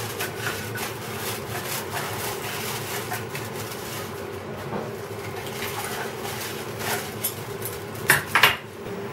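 Aluminium foil being peeled off a baking tray and crumpled by hand: a run of soft crinkles, with a few loud sharp crackles near the end.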